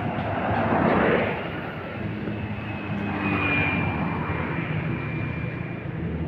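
Road vehicles passing close by: low engine rumble with a rush of tyres and air that swells about a second in and again around three to four seconds.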